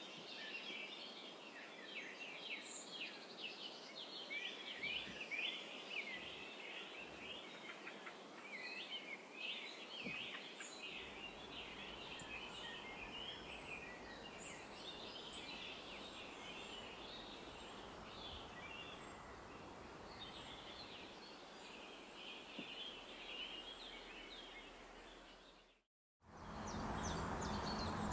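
Many small birds calling and twittering at once in a dense, continuous chatter over a steady outdoor hiss. Near the end it cuts out abruptly and gives way to a louder, steady noise with a run of fast high ticks.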